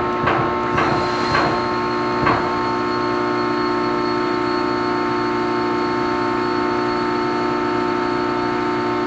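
Press brake running with a steady hum of several tones. A run of quick clicks, about two a second, sounds over the first second and a half, and one more comes a little later.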